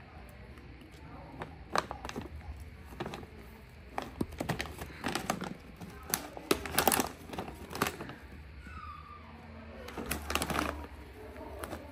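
Scattered taps, knocks and crinkling as a baby monkey's hands and feet scramble over a mirror, a stack of books and a wrapped package, busiest from about four to eight seconds in and again about ten seconds in.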